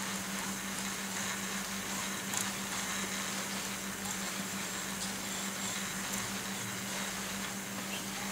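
Dendoumaru Beast Master 9000 ZB electric fishing reel in free spool as the rig drops to the bottom: the spool turning and line paying out, a faint steady whir with light scattered ticks over a constant low hum.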